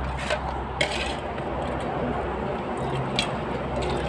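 A few light clicks and knocks as an aluminium pot is handled, then hot water starting to pour into the pot near the end.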